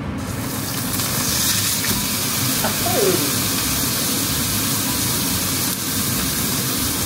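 Ribeye steak laid into a hot frying pan, sizzling as it sears: the hiss starts suddenly right at the start and holds steady.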